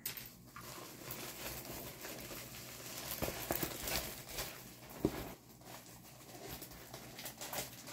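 Rolled diamond painting canvas being unrolled and handled, its plastic-covered sheet rustling and crinkling with irregular small crackles and a few sharper snaps.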